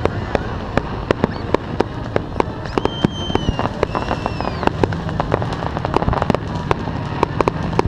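Firecrackers popping sharply and irregularly, several pops a second, over a steady low rumble. Around the middle, a couple of high whistling tones slide downward in pitch.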